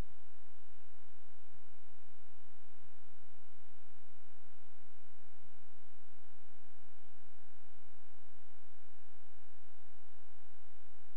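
Steady electrical hiss and hum from the recording line, with a constant high-pitched whine over it; nothing else happens.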